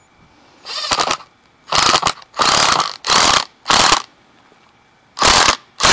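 Ryobi One+ 18V cordless impact driver driving a deck screw into a scrap 2x4. It runs in about seven short bursts, most about half a second to a second apart, with a longer pause before the last two.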